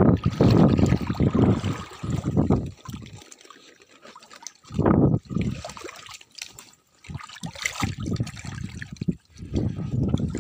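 Water sloshing and splashing in irregular bursts, with a lull in the middle.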